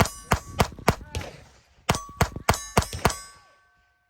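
Glock 44 .22 LR pistol fired rapidly, about ten shots in two quick strings with a short pause near the middle. A metallic ringing lingers after the shots.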